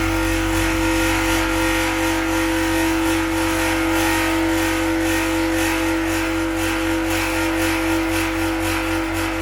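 Large bossed gong rubbed with the palm, singing a steady, sustained humming drone that holds without strikes.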